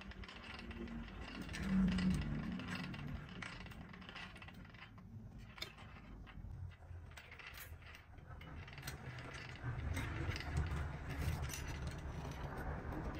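Jeweller's rolling mill turning, its gears clicking and ticking as a thin gold wire passes through the grooved steel rollers. The machine grows louder, with a low rumble, near the end.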